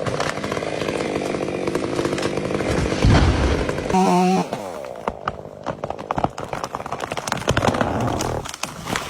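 Chainsaw running steadily, then a heavy low thump about three seconds in as the dead tree hits the ground, followed by many sharp cracks and snaps of breaking wood.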